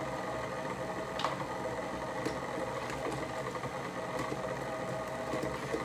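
KitchenAid Professional stand mixer running steadily, its motor humming as it mixes butter in the stainless steel bowl. A few light clicks sound over the hum.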